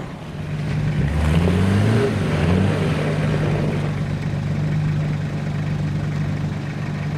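Engine of a four-wheel-drive van climbing out of a snowy roadside ditch: revving up twice with rising pitch about a second in, then settling to a steady run.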